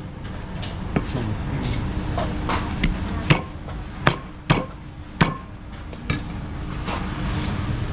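A cleaver chopping on a cutting board: about eight sharp strikes at uneven spacing, each with a short ring, the loudest in the middle of the stretch.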